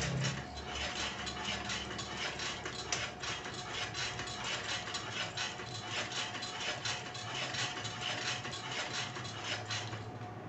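Homemade rice transplanter mechanism running: roller chain over sprockets and the spring-loaded seedling-planting arm linkage. It makes a steady rapid run of light metallic clicks and rattles over a faint hum.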